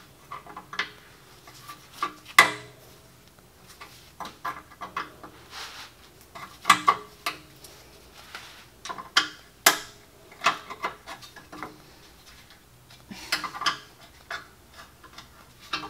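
Screwdriver prying at a metal brake-line retaining clip on the caliper bracket: irregular metallic clicks, taps and scrapes as the tip slips and catches. The loudest clicks come about two and a half seconds in and again near seven and ten seconds.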